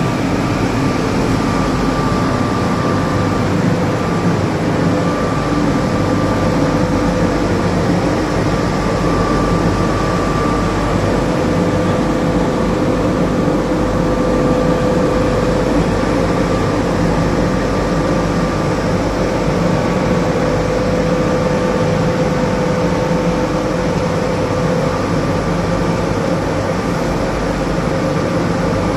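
Dry sesame dehulling machine running steadily: a constant mechanical rumble and hiss with a steady whine, plus a higher whine that comes and goes.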